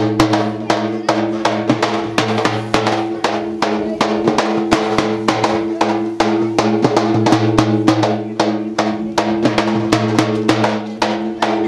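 Drum-led music: fast, even drum strokes, several a second, over a steady low drone.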